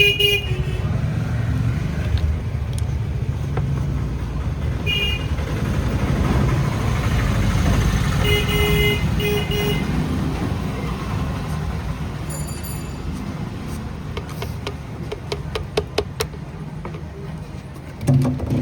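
Steady road-traffic rumble with short vehicle horn toots: one at the start, one about five seconds in, and a double toot around nine seconds. A run of light clicks and taps comes later.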